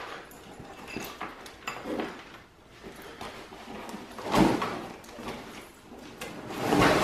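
A padded fabric carry bag being lifted out of a cardboard shipping box and handled: scraping and rustling against the cardboard, with a few dull knocks, the loudest a little after four seconds in and near the end.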